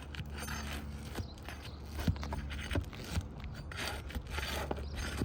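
Pry bar scraping and rubbing under an asphalt roof shingle while prying out its nails, with a few short sharp metal clicks.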